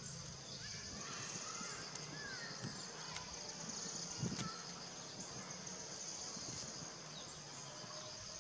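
Steady high-pitched insect chorus, with a few faint short chirps in the first half and a soft thump about four seconds in.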